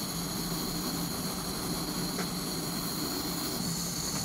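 Small handheld butane torch burning with a steady hiss as its flame heats the bottom of an aluminium can.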